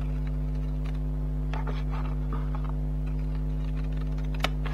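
Steady electrical mains hum, with faint rustling as paper is handled and cut with scissors, and one sharp click near the end.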